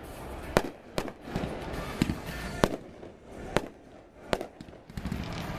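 Fireworks display: aerial shells bursting in about six sharp, unevenly spaced bangs, with a low rumble between them.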